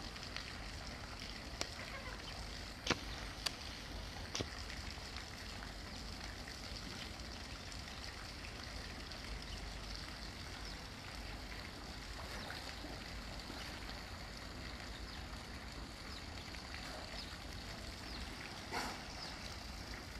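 Steady faint rush of water in an outdoor dolphin pool, with a few short knocks in the first few seconds and another near the end.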